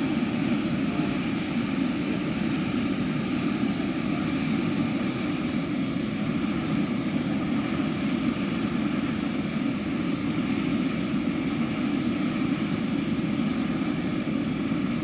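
JetCat PHT3-XL model gas turbine running steadily in a large-scale RC Bell 430 helicopter, with its main rotor turning. A steady high whine sits over the rotor and engine noise, with no change in pace.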